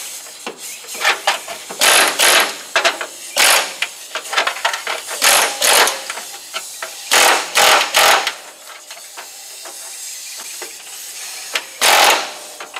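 A power tool cutting at the rusted sheet-metal floor of a car in short, loud bursts, each under half a second, with pauses between them and a longer lull late on.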